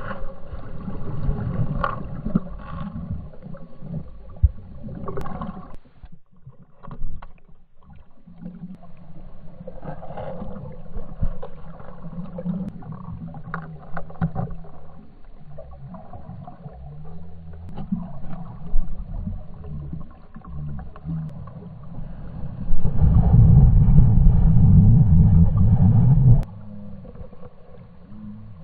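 Muffled water noise heard from under the surface of a pool as dogs dive and paddle: low, uneven rumbling with scattered knocks, and a louder stretch of about three seconds near the end.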